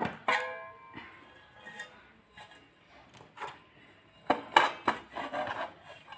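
Stainless steel bowls and a steel plate clanking and knocking as they are handled. There is one ringing clank just after the start, scattered lighter knocks, and a loud cluster of knocks about four and a half seconds in.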